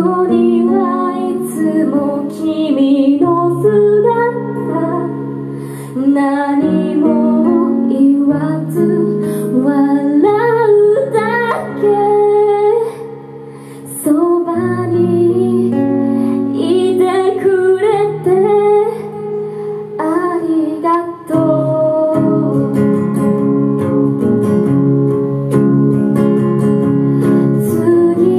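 A young female voice sings a slow pop song, accompanied by strummed acoustic guitars and held saxophone notes. The music dips briefly about halfway through, then carries on.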